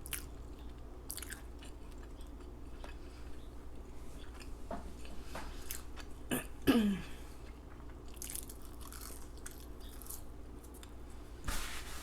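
Close-up chewing of McDonald's fast food, with open-mouth smacking and small wet clicks of the mouth. Midway there is one brief falling vocal sound from the throat.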